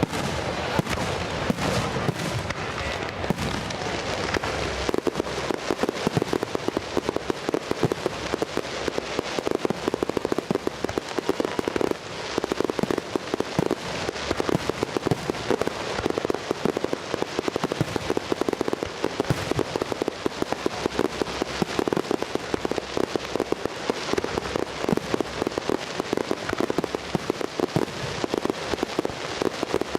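Fireworks going off in rapid succession: a dense, continuous crackle of many small sharp reports.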